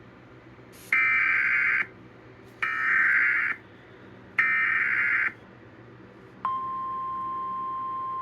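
Emergency Alert System header: three harsh, buzzy data bursts of about a second each, a second apart, then a single steady attention tone that starts about six and a half seconds in. These tones open an emergency alert broadcast, here an all-clear administrative message.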